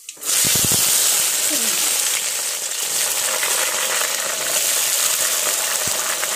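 Hot oil in a kadai sizzling as cut radish, brinjal and potato are tipped into it. The sizzle starts suddenly about a quarter second in and runs on steadily and loudly.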